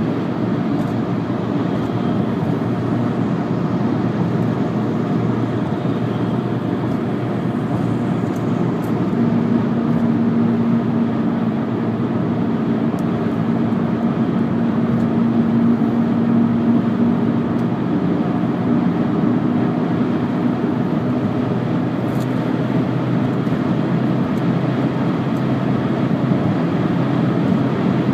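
Volkswagen Jetta driving, with steady road and tyre noise. About a third of the way in, a steady droning hum rises above it and fades out near three-quarters through; the owner thinks it is a bad rear passenger-side wheel bearing.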